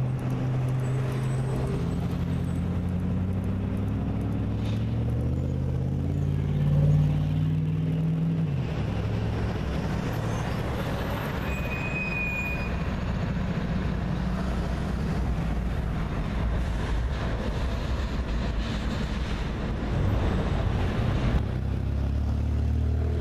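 Freight train passing below: diesel locomotive engines run with a steady low hum, and a dense rumble of a long double-stack intermodal train rolling by takes over from about nine seconds in to near the end.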